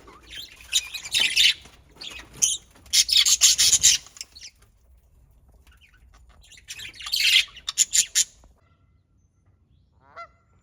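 Budgies chirping and chattering in several loud bursts, then falling quiet. A goose honks briefly near the end.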